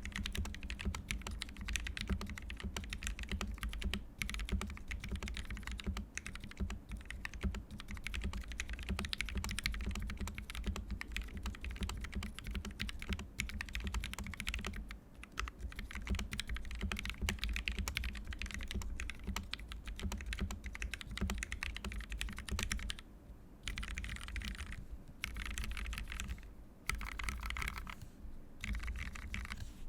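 Constellation mechanical keyboard with a brass plate and lubed Tealios linear switches (TX films, Durock stabilisers) being typed on in a rapid, continuous stream of key strokes. The typing breaks off briefly a few times near the end.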